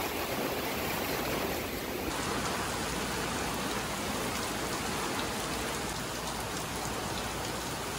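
Heavy rain pouring down on a moored sailboat, falling on its deck, canvas and clear vinyl enclosure. A steady hiss of rain, whose character shifts abruptly about two seconds in.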